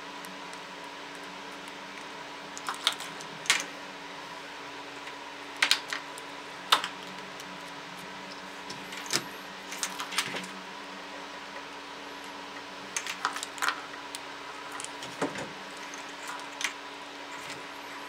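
Small irregular clicks and rattles of a universal USB charger cable's plastic connector tips as they are handled, swapped and plugged into mobile phones, over a steady background hum.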